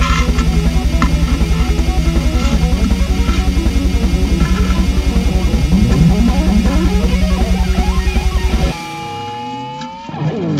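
Loud background rock music led by electric guitar, with a fast, even pulse. It cuts off abruptly near the end, leaving a few falling gliding tones.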